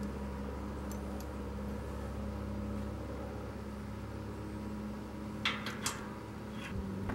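Steady low machine hum, with a few sharp metallic clicks about two-thirds through as steel locking C-clamps are handled on the hitch tongue. The hum shifts to a different drone near the end.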